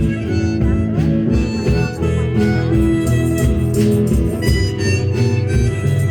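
Instrumental break between sung verses: a harmonica plays held and bending notes over an acoustic guitar accompaniment.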